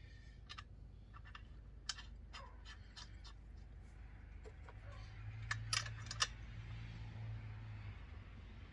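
Scattered small clicks and taps of hands working plastic and metal parts at the handle of a Husqvarna 365 chainsaw, over a low steady hum that grows a little stronger about halfway through.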